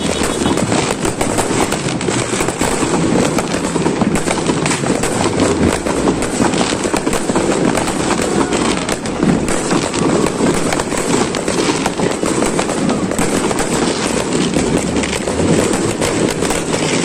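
Many fireworks and firecrackers going off at once in a continuous, dense crackle of rapid pops with no pause.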